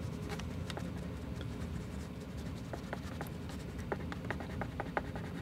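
China marker scratching across paper in many quick, short hatching strokes, an irregular run of light scratchy ticks.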